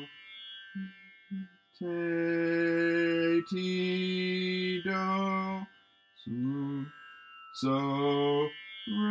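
A man singing a series of held notes, each about a second long with short gaps, sliding up into one note about six seconds in. He is singing pitches aloud to work out the notes of a melody he is writing down.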